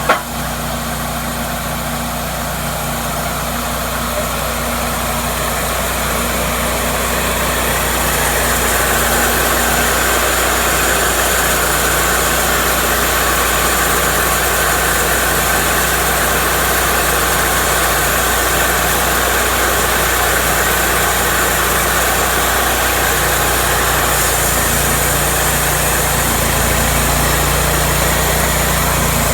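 Cook's MP-32 portable band sawmill running at a steady engine speed while the band blade cuts through a log. The sound builds over the first several seconds and then holds steady, with a sharp knock right at the start.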